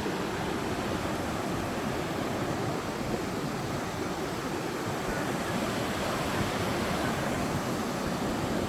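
Ocean surf washing onto the beach, a steady wash of waves.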